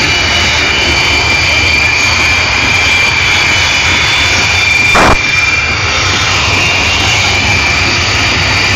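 Jet aircraft engines running on the ground as the display jets taxi, a loud steady rush with a thin high whine over it. About five seconds in comes one short sharp knock.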